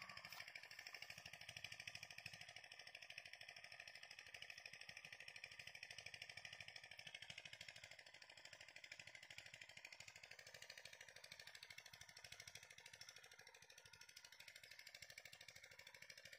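Near silence: a faint, steady, rapidly pulsing hiss or buzz with no distinct events.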